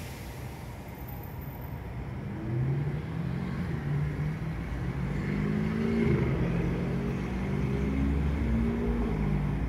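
A vehicle accelerating, its motor tone rising and stepping up and down in pitch several times and growing louder from about two seconds in, over a steady low traffic rumble.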